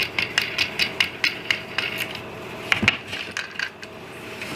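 Quick small metallic clicks, about four a second, as a washer and nut are fitted onto a bolt of a hold-down clamp and turned on, with a couple of louder knocks near the middle.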